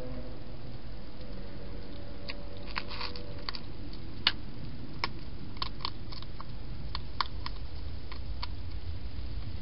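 Wild hedgehog feeding at a dish: its mouth makes about fifteen irregular, sharp clicks over a few seconds, against a steady low hum.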